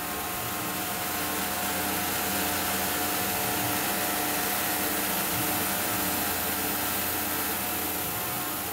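Tormach 1100 CNC mill cutting urethane tooling board with an end mill during an adaptive roughing pass, under the steady hiss of a shop vacuum pulling off chips and dust at the cutter.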